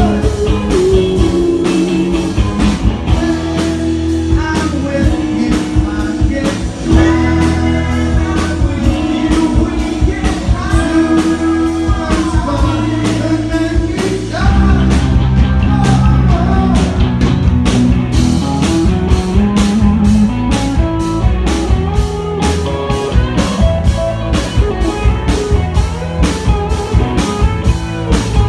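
Live rock band playing: a lead singer's vocal over electric guitar, bass and drum kit, with a steady drum beat throughout.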